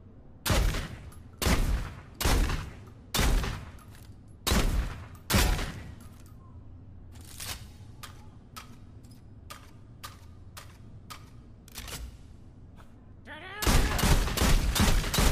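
Sound effect of a folding-stock SPAS-12 shotgun: six loud shots roughly a second apart, each with a short echoing tail. Then a run of light mechanical clicks, and near the end a rapid volley of shots fired in quick succession.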